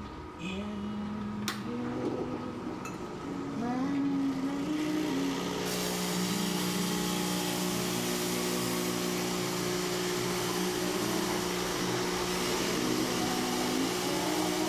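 Breville Dual Boiler espresso machine purging: its pump hums steadily as water runs through the group head, with a sharp click about a second and a half in. About five seconds in the steam wand is opened and hisses steadily over the hum, clearing stale water and steam from the boilers.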